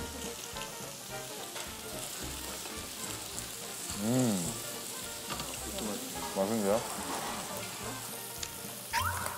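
Meat sizzling steadily on a tabletop grill. About four seconds in, a man hums an appreciative 'mmm', and he voices another short hum a couple of seconds later.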